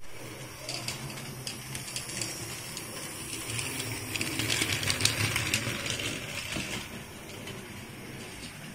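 A model train running on the layout's track: the whir of its small electric motor with quick clicks of the wheels over the rail joints. It grows louder as the train passes close by, about four to six seconds in, then drops away about seven seconds in.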